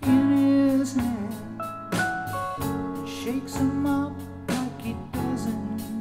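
A song with singing and instrumental accompaniment playing back through Harbeth SHL5+ 40th Anniversary loudspeakers, picked up by a microphone in the room.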